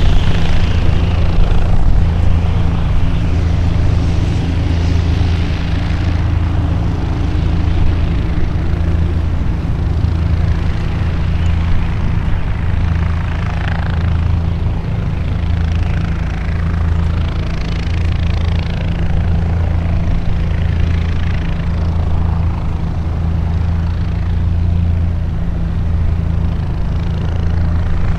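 A steady low engine drone with a slight regular pulsing, under a faint hiss.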